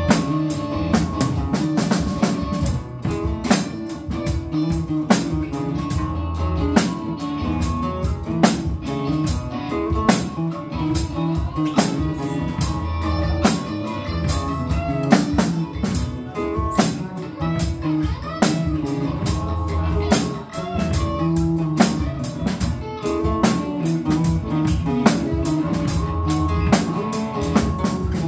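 Live band playing: electric guitars through amplifiers over a drum kit that keeps a steady beat with regular cymbal strokes.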